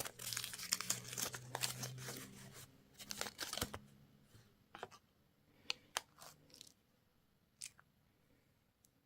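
Candy packaging wrapper being torn open and crinkled: a dense crackling for about four seconds, then a few scattered crinkles and clicks that die away.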